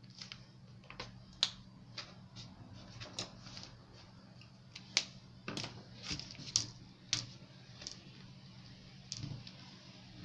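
Irregular sharp clicks and taps of a flexible plastic curve ruler being bent along a paper pattern and set against the paper, with the paper being shifted on a cutting mat. A faint steady low hum runs underneath.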